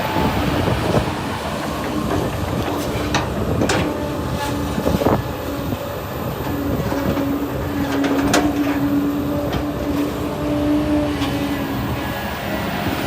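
Hydraulic excavator's diesel engine running under load, with a steady hydraulic whine and several sharp metal knocks.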